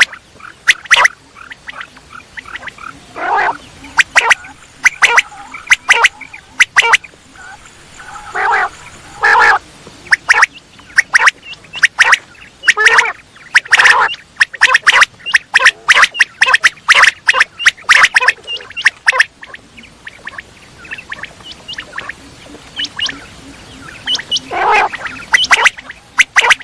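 Quail calling: clusters of short, sharp, quickly repeated notes, with a few longer, lower calls about half a second each mixed in, and a sparser stretch about two-thirds of the way through.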